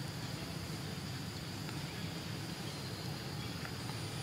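Steady outdoor ambience: a constant high insect drone over a low rumble.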